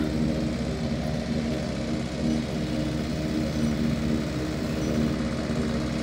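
Engine of a team-drawn corn chopper (forage harvester) running steadily as it cuts standing corn and blows the chopped corn into the wagon behind.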